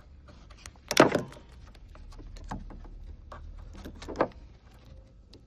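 Knocks and clicks of hands working a car headlight's wiring plug and test-light probe: a sharp knock about a second in, a second one near the end, and smaller ticks between.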